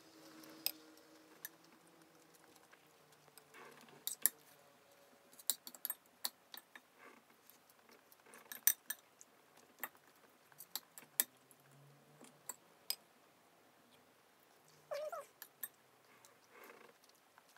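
Spoon and fork clinking and scraping against a plate and soup bowl while eating: irregular sharp taps, a few a second at times. About fifteen seconds in there is one short high-pitched cry that rises and falls.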